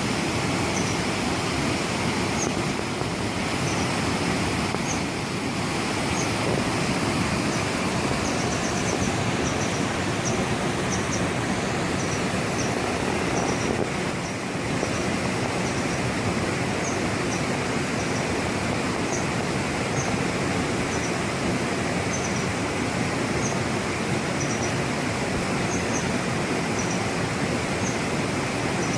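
A mountain stream in high flow, with white water rushing steadily. Faint high chirps repeat about once or twice a second throughout.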